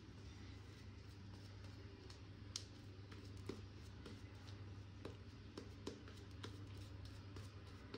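Very quiet room tone: a steady low hum with a few faint, short clicks scattered through it.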